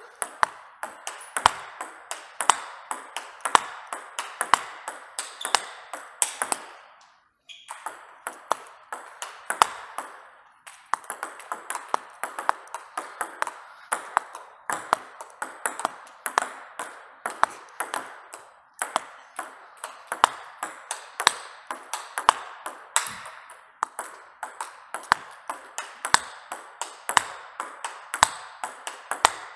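Table tennis rally with topspin strokes: a steady run of sharp clicks as the ball is struck by the paddles and bounces on the table, several a second. About seven seconds in there is a brief pause before play resumes.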